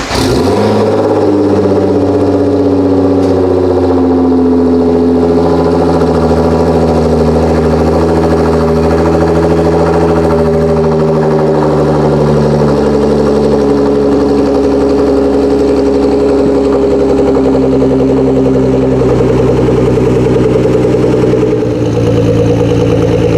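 Nissan GT-R engine idling steadily. There is a slight change in its note near the end.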